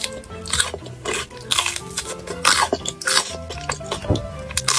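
Crisp crunching bites into a sesame-crusted fried chicken cutlet, several loud crunches about a second apart with chewing between them, over background music.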